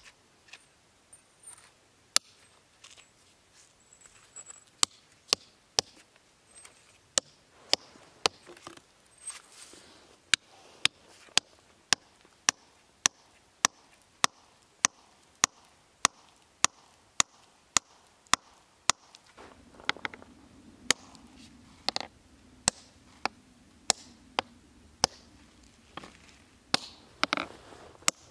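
Hand hammer striking steel chisels and forged splitting wedges set in a stone block: sharp metallic taps, scattered at first, then a steady rhythm of about two blows a second. It is the work of cutting wedge holes along a line and driving wedges to split the stone.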